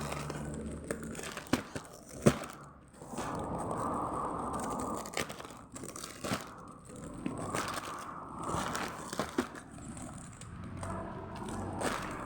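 Plastic packaging rustling and crinkling as it is handled and opened, with several sharp clicks, the loudest a little over two seconds in.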